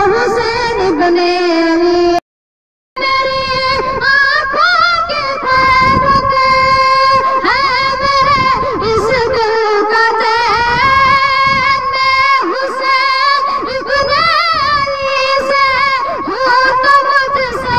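A boy singing an Urdu devotional naat into a microphone, with long wavering, ornamented held notes. The sound cuts out completely for under a second about two seconds in.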